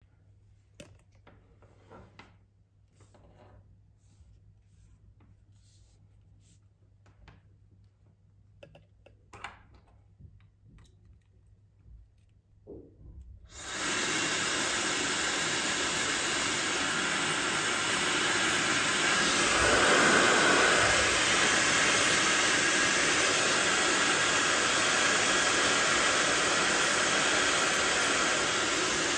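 Faint handling clicks, then about halfway through an Aisuru 1600 W hair dryer switches on and runs with a steady, loud rush of air.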